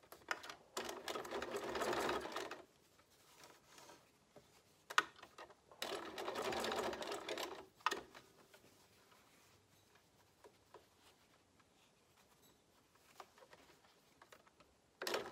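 Bernina 440 QE sewing machine stitching fabric strips together in two short runs of about two seconds each, with a pause between. After the second run there are only small clicks and fabric handling, then one sharp click near the end.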